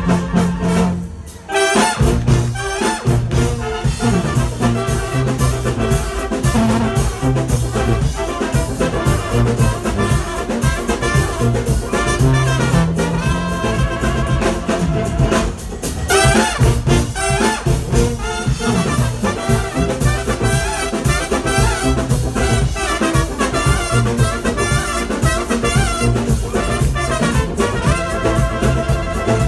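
Live Balkan brass band playing: a row of trumpets carrying the melody over tuba and drum kit with a steady beat. The band breaks off briefly about a second in before coming back in.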